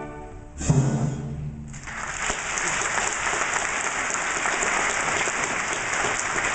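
A last loud orchestral chord about half a second in, fading quickly, then audience applause that breaks out a little under two seconds in and goes on steadily.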